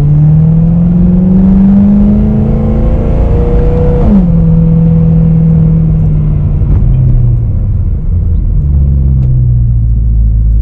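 BMW E92 M3's V8 engine, heard from inside the cabin through an Akrapovič exhaust, climbing in revs under acceleration. About four seconds in the revs drop sharply with an upshift, then ease slowly lower as the car settles into a lighter throttle with a deep rumble.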